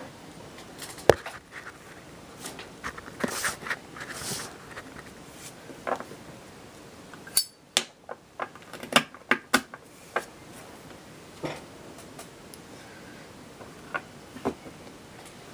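Sharp metallic clicks and clinks from Zippo-style pocket lighters being handled, their hinged lids snapping and flint wheels being struck. The clicks come singly at first, with a quick run of them about halfway through.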